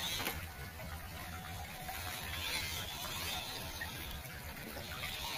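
Shallow stream water running over rocks, with sloshing as the wheels of a 1/12-scale RC crawler drive through it.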